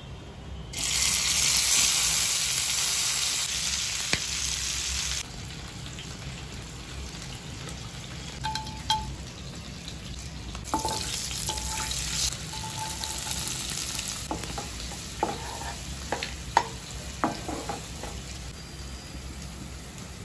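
Food frying in hot oil in a pan. A loud sizzle starts about a second in and cuts off after about five seconds, then a quieter steady sizzle follows with scattered spatula knocks and scrapes from stirring in the second half.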